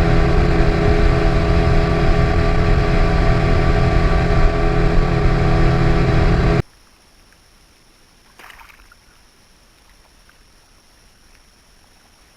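Mercury SeaPro outboard motor running steadily at speed on a small flats skiff. It cuts off abruptly about six and a half seconds in, leaving quiet with one brief faint sound a little later.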